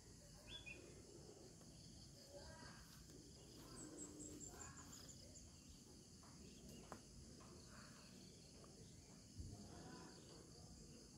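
Near silence with faint insects chirping, including a short run of quick high chirps about four seconds in, and a soft low thump near the end.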